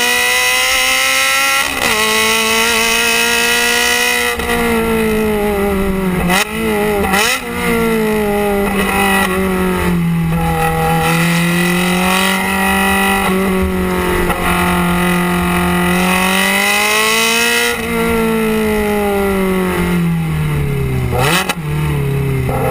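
Ferrari 360 Challenge Stradale's V8 heard at the exhaust tips under way on track, its note climbing and falling as the car speeds up and slows. A few quick breaks in the note, around six to seven seconds in and again about 21 seconds in, mark gear changes.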